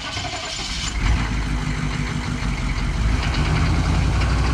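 Truck engine running steadily, growing louder about a second in.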